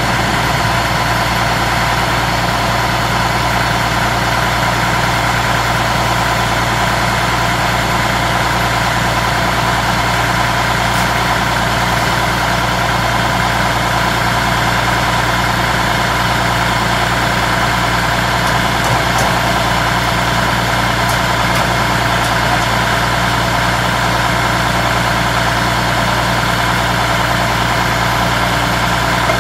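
John Deere 3350 tractor engine running at a steady speed, driving a PTO-powered forage chopper, with an even, unbroken drone.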